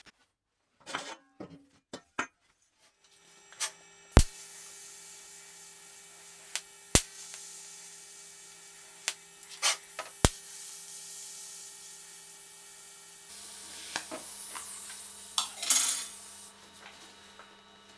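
A few light metal taps, then a TIG welding arc running with a faint steady hum and hiss, broken by a few sharp clicks. The hum shifts in pitch about two-thirds of the way through, and there is a short burst of noisier crackle near the end.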